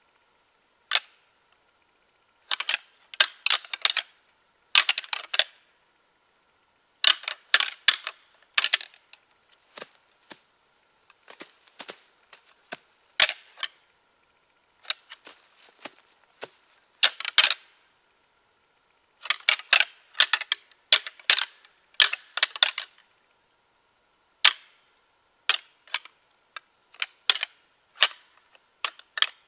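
A pair of whitetail deer antlers being rattled: the tines clash and grind together in bouts of rapid sharp clacks, each a second or two long, with short pauses between. This is antler rattling, which imitates two bucks fighting in order to call in a whitetail buck.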